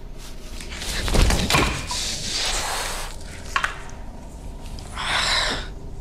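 A heavy thud about a second in, followed by rustling noise, a sharp click, and a short burst of hiss near the end.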